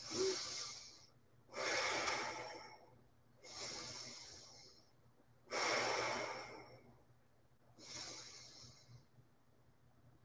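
A woman's deep, active breaths in and out through the nose, about one every two seconds, alternating softer and louder, as she presses each exhale out from the diaphragm.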